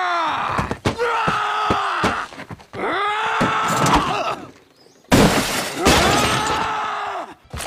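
A cartoon character's enraged screaming: four long wordless yells, each falling off at its end, with a couple of short knocks between the first two.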